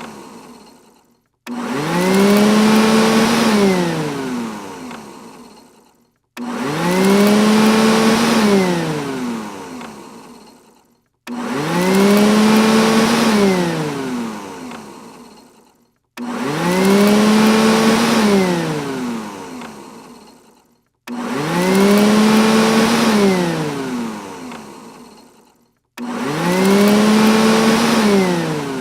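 Robot vacuum cleaner motor whine that starts suddenly, rises in pitch, holds, then winds down and fades, repeating about every five seconds, six times over.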